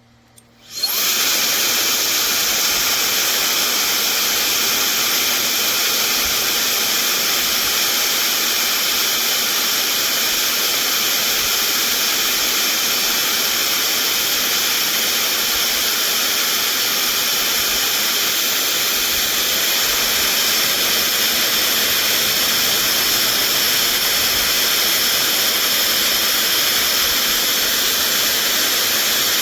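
Brushless (BLDC) hair dryer switching on about a second in and then running steadily: a loud, even rush of blown air with a few steady high tones in it.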